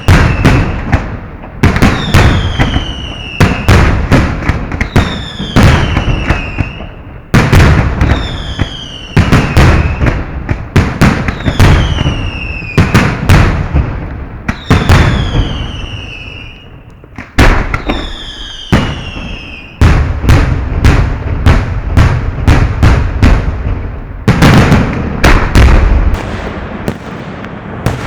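Fireworks heard up close at the firing site: a dense run of loud bangs from shells launching and bursting. A whistle falling in pitch sounds about every two seconds until near the end.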